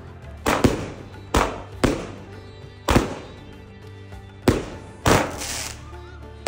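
Ground firework letting off a string of sharp bangs, about seven in six seconds at uneven intervals, each trailing off quickly, with a short crackle about five seconds in. Background music plays under the bangs.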